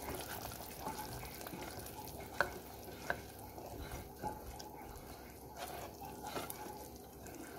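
A steel ladle stirring a yogurt-and-spice mixture in ghee in a pressure cooker, which sizzles steadily as the water from the yogurt cooks off. A couple of sharp clicks of the ladle against the pot come a few seconds in.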